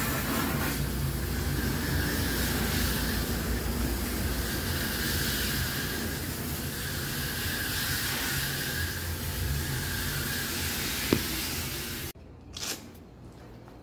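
Water spraying steadily from a hose spray gun onto a window air conditioner's coil during cleaning: a steady hiss over a low rumble. It cuts off abruptly about 12 seconds in, leaving quiet with a couple of faint knocks.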